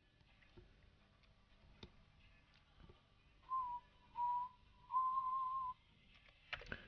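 A person whistling three short notes at much the same pitch, the third held longest, with a few faint clicks around them.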